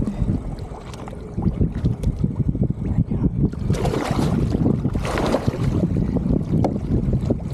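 Water splashing as a hooked tuna thrashes at the surface against the boat's hull, over a steady low rumble of wind on the microphone. The splashing peaks twice, about four and five seconds in.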